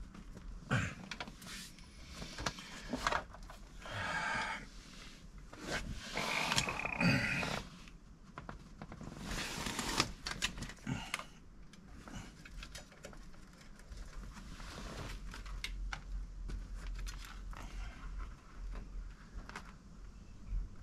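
Scattered handling noises from hands-on work on car wiring and an amplifier: clicks, scrapes and short rustles, with a faint low hum underneath.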